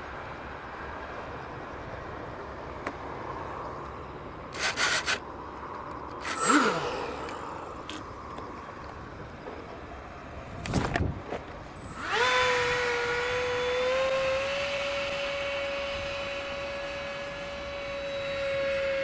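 Wind noise with a few brief buzzes and knocks. About twelve seconds in, the RC plane's electric ducted fan (IR-202542DF 4200KV motor in a DF-55 fan unit) spools up and settles into a steady whine.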